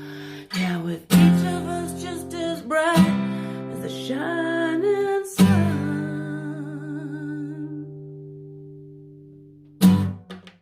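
Acoustic guitar strumming the closing chords of a song under a held, wavering sung note. The last chord rings out and fades for several seconds, then one brief sharp strum is quickly damped near the end.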